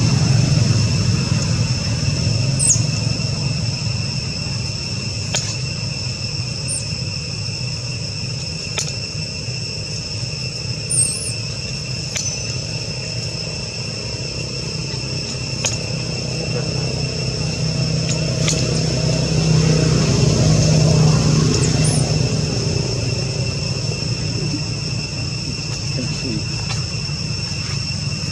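Steady high-pitched insect drone throughout, over a low rumble of passing traffic that swells about twenty seconds in, with a few faint clicks and short high chirps.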